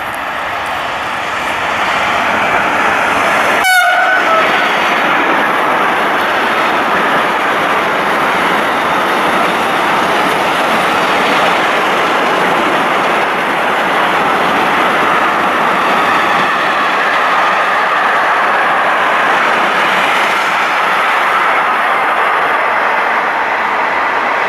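Freight train going by with a steady, loud rumble and rattle of wagons on the rails. A short horn blast sounds about four seconds in.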